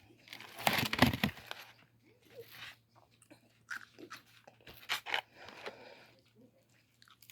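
Crunching bites into crispy fried chicken, with chewing. A loud burst of crackling crunches comes about a second in, and softer crunches follow around four to five seconds in.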